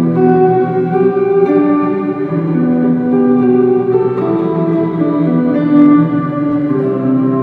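Electric guitar improvising slow, long-held notes that overlap and hang into one another, washed in reverb and delay from stacked ambient pedals: the Old Blood Noise Endeavors Dark Star V2, the Mr. Black Supermoon Chrome and the Mr. Black Downward Spiral.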